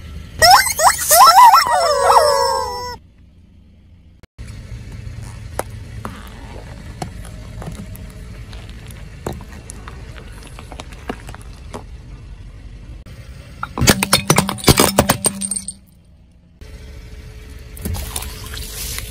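Rubber squeaky chickens squealing as they are squashed: several falling tones together for about two and a half seconds. Then a long low rumble with scattered crackles as a car tyre rolls over them, a burst of sharp cracking about fourteen seconds in, and near the end a milk carton bursting under the tyre with milk gushing out.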